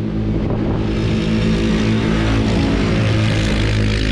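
Two CFMOTO CForce ATVs, the 500 and the 600, running flat out side by side as they race past, their engine notes steady and overlapping, getting louder about a second in as they close in.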